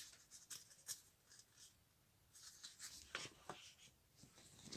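Faint rustling and light ticks of paper pages being handled and turned in a sticker book, with a sharper tick right at the start.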